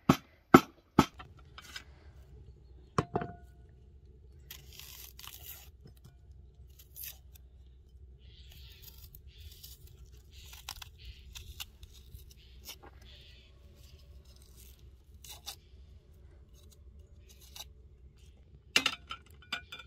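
Three sharp chops on a wooden cutting board at the start, then a small knife peeling a dry onion: the papery skin rustles and tears and the blade scrapes, in soft irregular bursts. A few clicks near the end.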